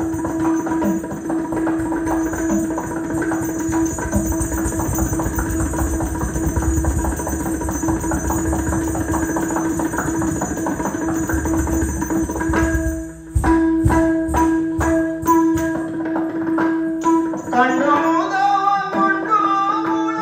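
Yakshagana accompaniment: hand-played drumming with small hand cymbals over a steady drone. The drumming is dense at first, breaks into separate strokes a little past halfway, and a male singer begins singing near the end.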